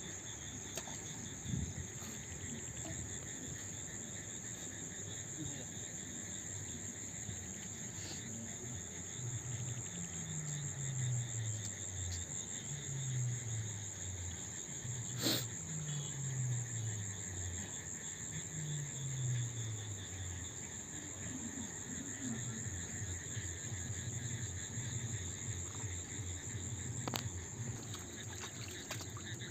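Insects trilling in a steady, high, continuous chorus. In the middle, a handful of low falling sounds, each about a second and a half long, come every few seconds, and there is a single sharp click about halfway.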